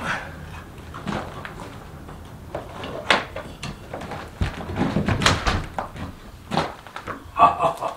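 Irregular knocks and bumps of a new vinyl exterior door being handled and fitted into its framed opening, a few sharp raps spread through, the loudest near the end.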